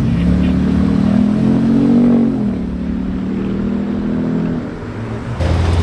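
Car engine revving up, its pitch rising for about two seconds and then dropping back to a steady run. Near the end a deeper, steady engine drone starts suddenly.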